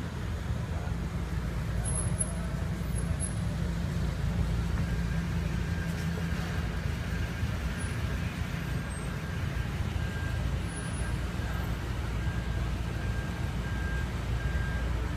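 City street traffic: a steady low rumble of vehicle engines and passing cars. A faint thin steady tone comes in about five seconds in.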